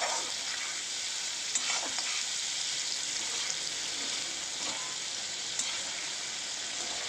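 Paneer cubes sizzling steadily as they shallow-fry in hot oil in a kadai, with a slotted metal spatula scraping and turning them against the pan a few times.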